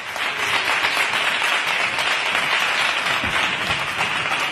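Applause from a small group, dense steady clapping with no set rhythm.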